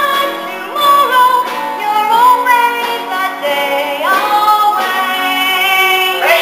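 A female voice singing a show tune over instrumental accompaniment, with long held and gliding notes.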